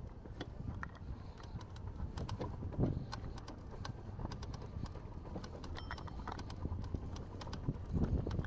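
Outdoor street ambience: a steady low rumble with many light, irregular clicks and taps, and two brief louder low swells, one about three seconds in and one near the end.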